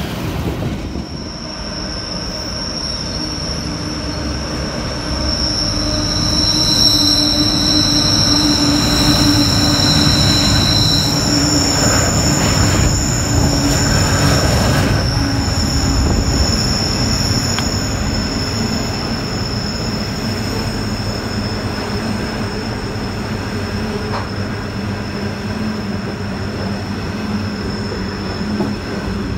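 Freight train of loaded coal hopper wagons rolling past close by: a continuous rail rumble with high, steady wheel squeal from the curved track, loudest in the first half and easing off later.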